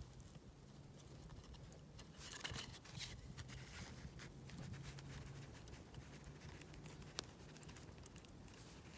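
Faint handling sounds of fingers pressing and smoothing pine pitch around a stone axe head hafted in a wooden handle: scattered small clicks and crackles, a few louder about two and a half to three seconds in.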